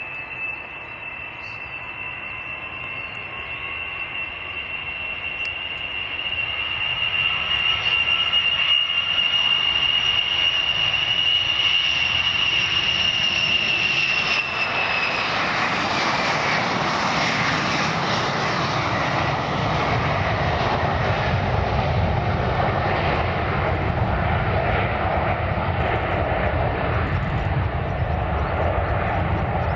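Tupolev Tu-154 tri-jet airliner's three rear-mounted jet engines at takeoff power: a steady high whine over a rising roar that turns loud about seven seconds in. About halfway, the whine drops in pitch as the jet passes, and a broad low roar remains as it climbs away.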